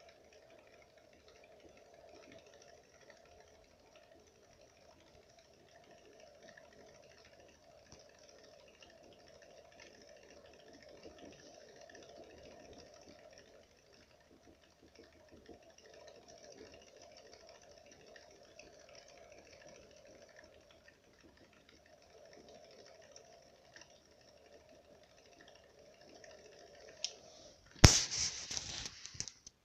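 Syrian hamster running in a Trixie 28 cm wooden wheel on ball bearings: faint, quick, continuous tapping of paws on the wheel's cork running surface, with no squeak from the wheel itself. Near the end comes a sudden loud knock, then about a second and a half of clattering.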